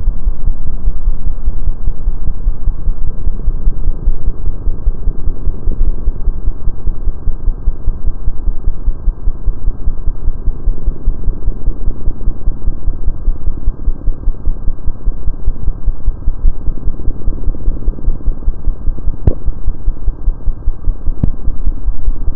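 Loud, low, steady throbbing drone with a rapid flutter and nothing high in it. Near the end come two short clicks about two seconds apart.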